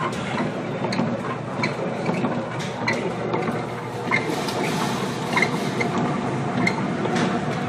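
Noise aboard a container ship pitching in heavy storm seas: a steady low rumble with short, irregular rattling clicks.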